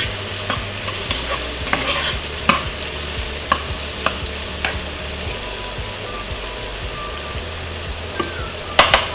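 Onion, garlic and tomato frying in oil in a nonstick pot, a steady sizzle, while a cooking utensil stirs them, clicking and scraping against the pot about twice a second at first, then less often, with a few quick knocks near the end.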